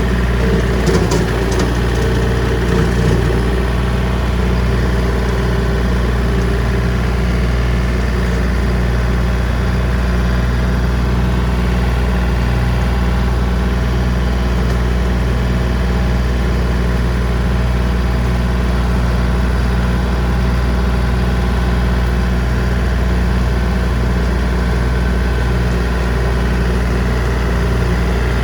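John Deere 3025D compact tractor's diesel engine running steadily while pulling a brush hog rotary cutter in first gear low range. A few brief ticks sound in the first few seconds.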